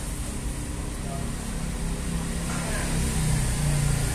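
Steady low engine rumble with a low hum, growing louder near the end, under faint background voices.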